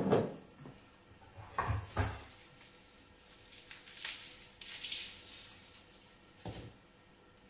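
Kitchen handling sounds: an olive oil bottle knocked down on the countertop, then a couple of dull thumps and a soft rustling scrape at a wooden cutting board, and another knock near the end.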